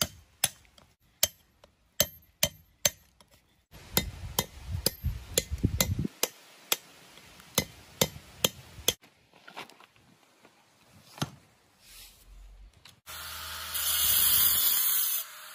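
Hammer striking a steel chisel, cutting grooves into the grinding face of a stone millstone: sharp taps, about two a second, thinning out after about nine seconds. About 13 seconds in, an angle grinder cuts in loudly, grinding the top of a stone block.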